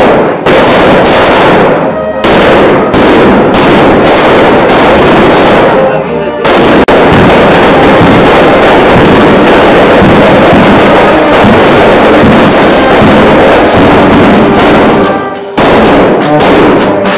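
A dense, very loud barrage of firecrackers, the bangs so rapid that they run together into a continuous crackle, with brief lulls about six seconds in and again near the end. A brass band can be heard faintly underneath as the bangs ease off.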